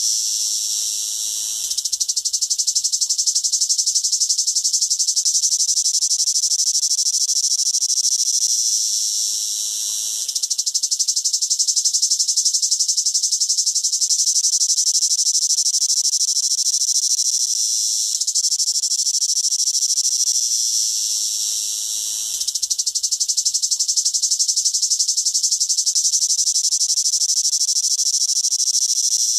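Cicada singing: a loud, high-pitched continuous buzz that eases off briefly three times and then starts up again.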